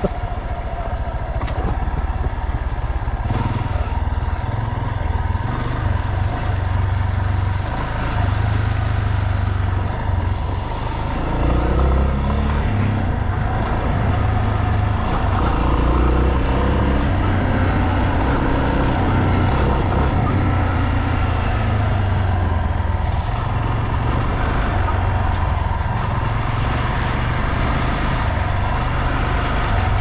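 Yamaha Serow's single-cylinder four-stroke engine running steadily while riding, revving up about eleven seconds in.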